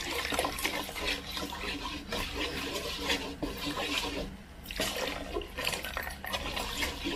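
Coconut milk pouring from a strainer into a metal pot while a wooden spoon stirs and scrapes through hunkwe flour, a steady splashing pour with uneven scraping strokes.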